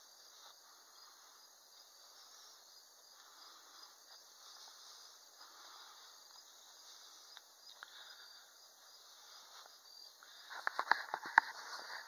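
Faint, steady chirping of insects, a thin high-pitched pulsing that never stops. About a second before the end comes a quick run of sharp clicks and knocks, the loudest thing here.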